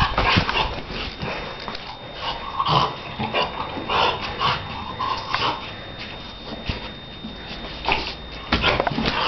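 Shar Pei dog making short vocal sounds in bursts while it plays, with a few dull thumps about a second in and again near the end.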